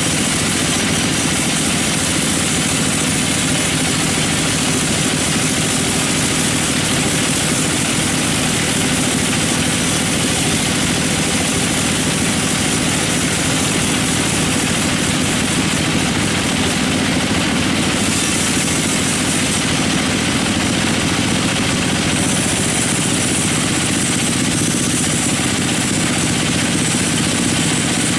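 Sawmill machinery running steadily: a constant engine drone with a dense hiss over it, at an even level without pauses.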